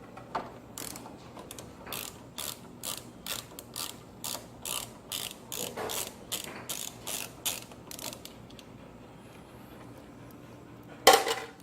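Ratchet wrench clicking in a steady run of strokes, about two a second, backing out a motorcycle seat bolt; the clicking stops about eight seconds in. A single louder clunk comes near the end.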